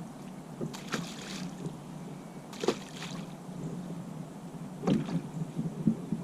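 A handful of short knocks and clicks aboard a pontoon fishing boat, the loudest about five and six seconds in, over a steady low hum.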